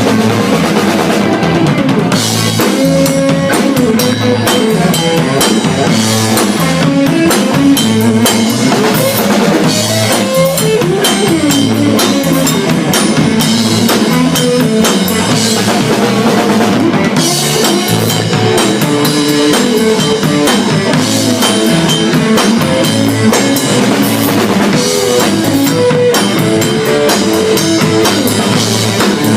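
Live band playing an instrumental break, with no singing: a drum kit keeps a steady beat with bass drum and rimshots under guitar and a moving melody line.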